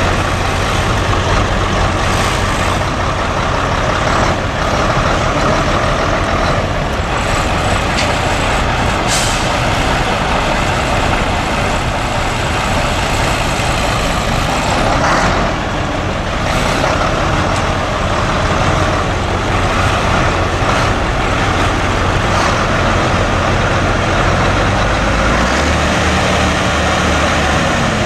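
Mack six-cylinder diesel engine of a 1972 Mack R685 semi truck running steadily, with a few brief hisses on top. Its low note shifts near the end.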